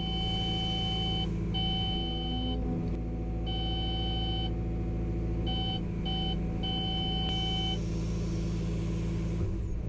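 Cat 320 excavator's in-cab E-fence ceiling warning tone beeping in an uneven pattern of long and short beeps, the sign that the boom has reached the set ceiling height limit. The beeping stops about two seconds before the end, and the diesel engine runs steadily underneath.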